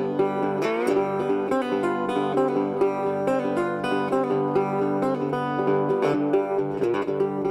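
Background music: an instrumental stretch of a song with picked guitar and no singing.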